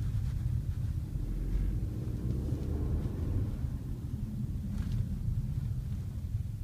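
Inside the cabin of a car with a DQ500 seven-speed DSG gearbox under way: low engine and road rumble, the engine note rising and then dropping about three seconds in as the gearbox shifts. A short knock follows about five seconds in, the knock this DSG makes on the 2nd–3rd gear shift.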